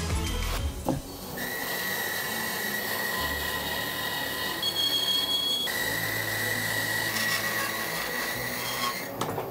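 Bandsaw running and cutting a thick wooden chair-seat blank along a curve: a steady cutting noise under a high whine, whose pitch shifts for about a second midway.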